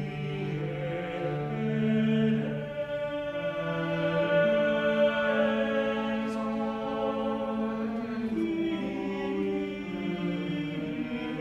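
Mixed chamber choir singing a Kyrie in slow, sustained, overlapping lines, with a string quartet accompanying.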